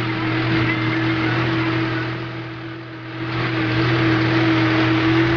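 New Holland tractor's diesel engine running steadily under load, pulling a disc harrow through waterlogged mud. Over it runs a steady rush of noise that fades for a moment about halfway through.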